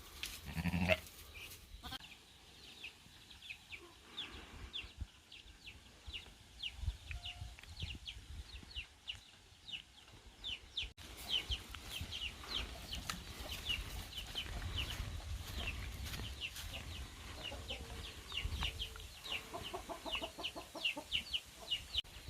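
Farmyard animal calls: a steady run of short, high, falling peeps, several a second, from poultry, with lower calls from other farm animals near the start and again near the end.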